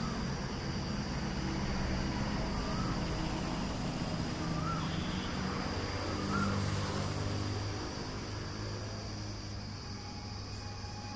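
A steady low engine drone with an even rumble, easing off slightly near the end. Three short chirps are heard over it in the middle.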